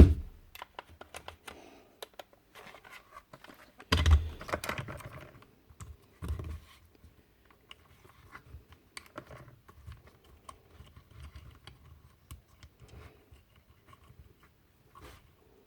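Parts of a Paslode IM350+ nailer being handled and fitted by hand: scattered light clicks and taps, with a heavier knock about four seconds in and another about six seconds in.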